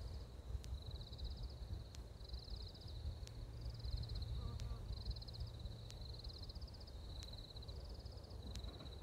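Fairly quiet, high-pitched animal chorus: a continuous high note with short buzzy trills repeating about once a second over it, and faint sharp ticks. A low rumble runs underneath.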